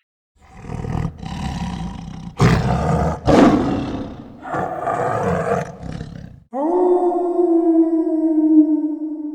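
A big cat roaring: several rough, throaty roars for about six seconds, the loudest in the middle. They are followed by a long, steady, pitched tone that holds to the end.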